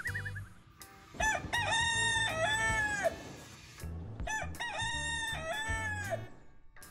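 Rooster crowing twice, a full cock-a-doodle-doo each time, each crow about two seconds long.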